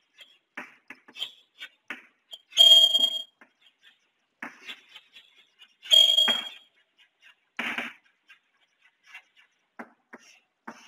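Chalk writing on a chalkboard: a string of light taps and scrapes from the chalk strokes, with two sharp, high-pitched chalk squeaks, one about two and a half seconds in and one about six seconds in.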